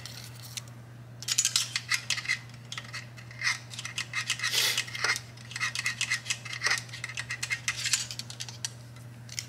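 A metal telescoping magnetic pickup tool scraping and clicking against the inside of a motorcycle's oil pan as it is worked around to sweep for metal debris. It comes in several runs of rapid scratchy scraping with a faint metallic ring, starting about a second in and stopping just before the end.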